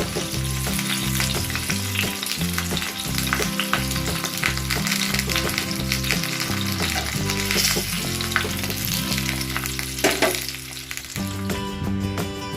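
Food sizzling and crackling in a hot pan, a dense steady frying sound, with background music underneath.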